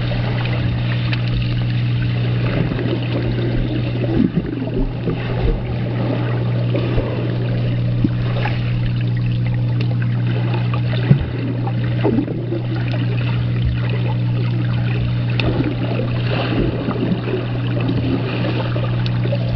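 A steady low machine hum with water sounds over it and a few scattered knocks.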